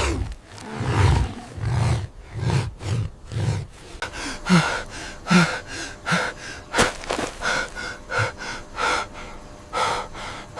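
An animal's heavy, rapid breathing: a run of short huffs about two a second, with low rumbling pulses under the first few seconds.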